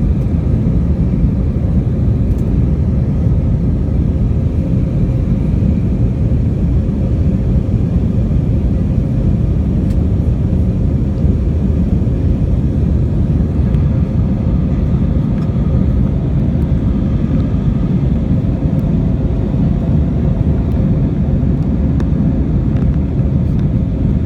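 Jet airliner cabin noise: the engines and rushing air make a steady, loud, deep rumble with a faint constant hum above it, heard from inside the passenger cabin.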